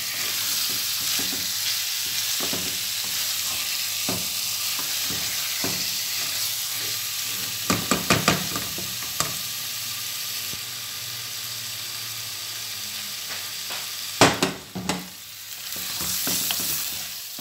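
Chicken pieces with green pepper and tomato sauce sizzling in a pot while being stirred with a wooden spoon: a steady hiss with scattered knocks of the spoon on the pot, a cluster of them about eight seconds in and a louder pair near fourteen seconds.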